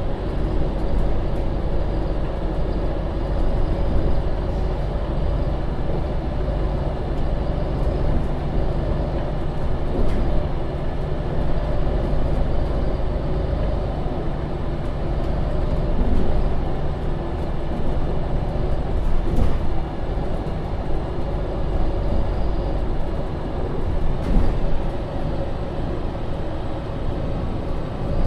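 Euro 6 diesel engine and drivetrain of a MAN Lion's City (NL 283) city bus running steadily while the bus drives, with a constant low drone and a few brief knocks and rattles.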